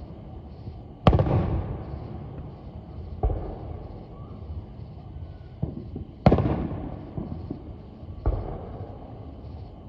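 Aerial firework shells bursting: four loud booms about two to three seconds apart, each trailing off in a lingering echo, with a few smaller pops between them.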